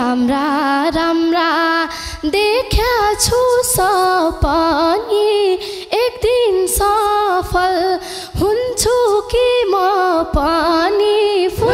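A woman singing a Nepali dohori folk verse live into a microphone: a slow, ornamented line whose pitch bends and wavers between notes, mostly without the band. The instruments come back in near the end.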